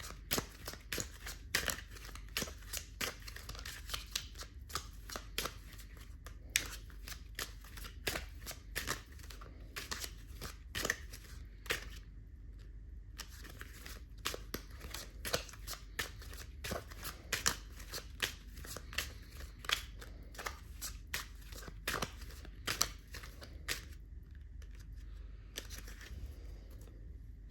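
A deck of tarot cards shuffled by hand: a long run of quick, irregular card snaps and slides, with a couple of short pauses and fewer snaps near the end.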